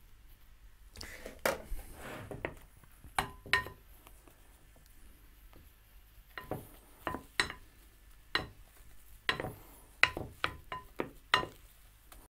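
Metal spoon clinking and scraping against a glass mixing bowl, a dozen or so irregular clinks, as beaten egg white is folded into a chocolate mousse mixture.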